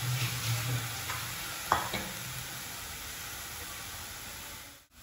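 Eggplant pieces sizzling in a hot nonstick kadhai with no oil, a steady hiss. One sharp clink a little under two seconds in.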